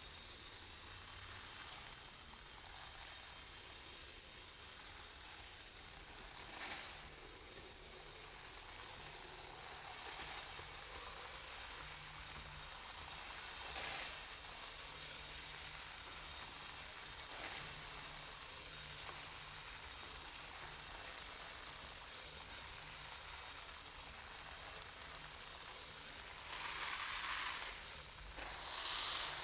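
Rice grains pouring in a thin stream from a swinging cone-shaped pendulum onto a handheld metal sheet and the rice-strewn floor, a steady hiss of pattering grains. A few brief louder scrapes come in the middle, and it swells louder near the end.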